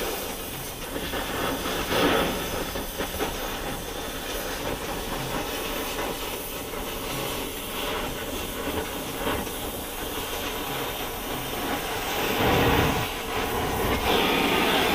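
Gas torch flame hissing steadily as it heats the starter ring gear on an automatic-transmission flexplate so the ring expands. It swells louder briefly about two seconds in and again near the end.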